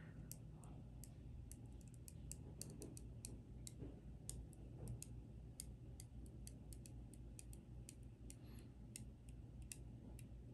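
Many faint, irregular clicks and ticks as an old tempered-glass screen protector is slowly peeled off a phone screen, the adhesive letting go bit by bit.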